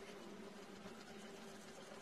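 Near silence: a faint steady hum and room tone.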